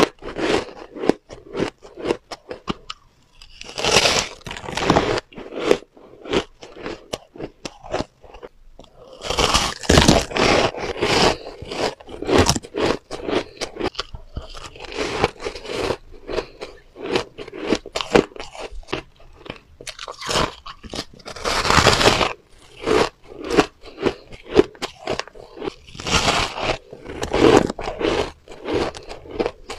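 Close-miked biting and chewing of soft shaved ice: steady wet crunching and crackling, with a few louder bouts of crunching spread through.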